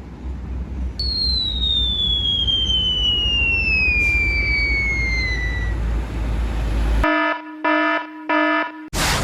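A long whistle sliding steadily down in pitch for about five seconds over a low rumble, in the manner of a falling-bomb sound effect. Then, after a short gap, three short buzzing horn beeps.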